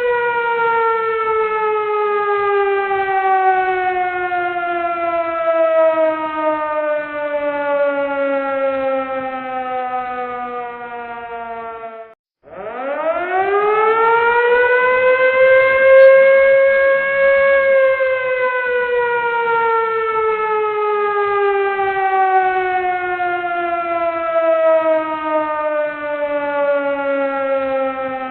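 Emergency warning siren sounding. Its pitch glides slowly down for about twelve seconds and drops out for a moment. It then winds quickly back up and slides slowly down again.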